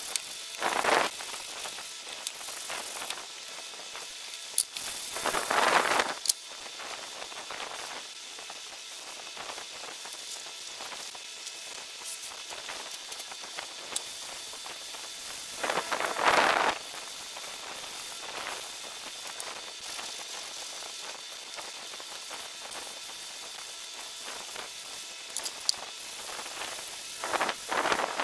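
Hand sanding and rubbing on a wooden gage-block case: short scratchy rubbing spells of about a second, four times, over a steady low hiss.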